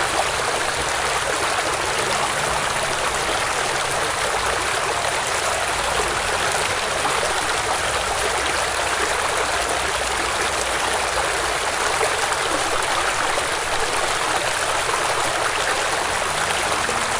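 Flowing water rushing steadily and evenly, like a stream.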